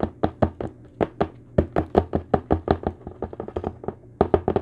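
Rapid knocking of plastic on plastic as a tilted tub is shaken against a small plastic container to tip soil-like beetle substrate into it, about six knocks a second in quick runs with short breaks.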